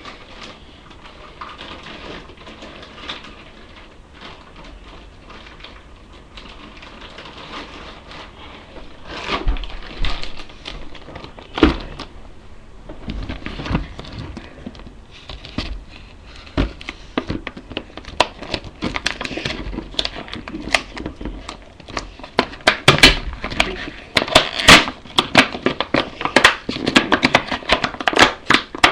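A small cube box and its plastic packaging being handled and opened: crinkling with sharp clicks and knocks, sparse and faint at first, then coming thick and fast through the last ten seconds or so.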